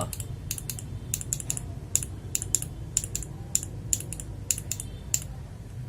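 Mechanical keyboard keys being typed on: an uneven run of sharp clacks, a few a second.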